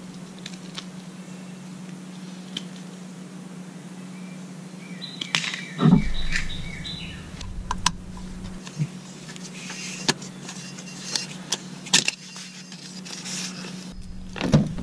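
Scattered sharp clicks and snips of wire cutters and plastic electrical connectors being worked on a truck's transmission wiring harness, over a steady low hum, with a loud thump about six seconds in. Near the end a pickup's door handle is pulled and the latch clicks open.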